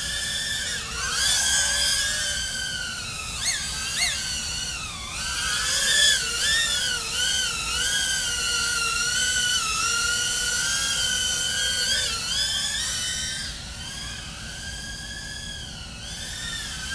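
Small 2-inch FPV quadcopter in flight, its brushless motors and propellers whining. The pitch wavers up and down with the throttle, with two quick sharp rising blips about three and a half and four seconds in, and the whine eases off somewhat near the end.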